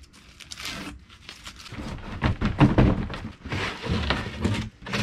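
Weathered plywood handcart on wooden wheels being shoved and rolled on pavement: a run of wooden thunks, knocks and rattles that starts about two seconds in, after a few faint clicks.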